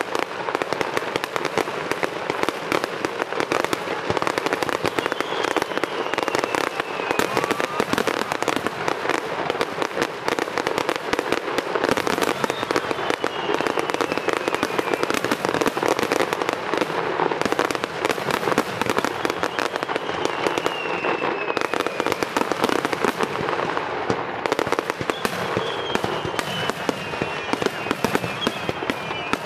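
Fireworks display: a dense, continuous barrage of shells bursting and crackling, with about five falling whistles heard through it.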